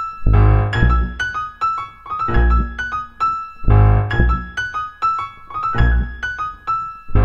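Jazz piano and upright double bass playing together: piano chords and melody with accented low chords recurring every second or two, over a plucked bass line.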